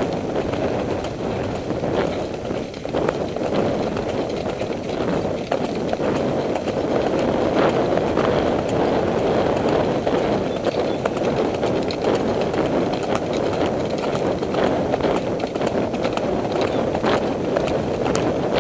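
Horse hooves clip-clopping on a dirt trail, heard from the saddle, with scattered sharp hoof strikes over a steady rushing noise.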